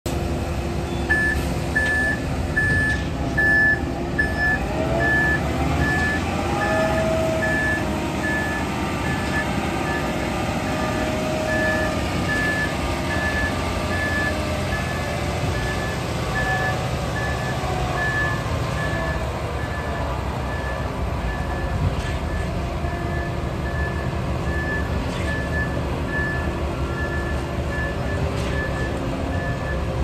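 Concrete mixer truck backing up: its reverse alarm beeps steadily at an even rate, starting about a second in, over the low rumble of the truck's engine running.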